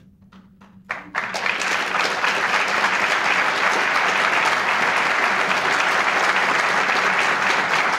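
Audience applause: a few scattered claps, then about a second in it swells into full applause that holds steady.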